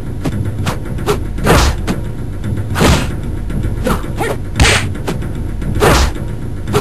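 Kung fu fight sound effects: a quick run of punch and kick impacts, about two a second, with four louder, longer hits, over background music.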